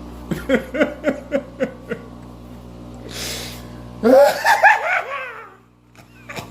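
A person laughing: a quick run of short, rhythmic 'ha' bursts, then an intake of breath and a louder, wavering laugh.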